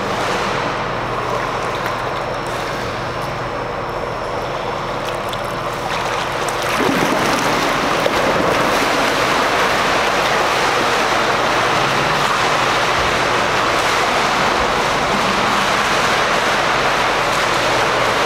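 Swimmer splashing down an indoor pool, with water lapping at the pool edge close by. The splashing noise steps up about six to seven seconds in and then stays steady.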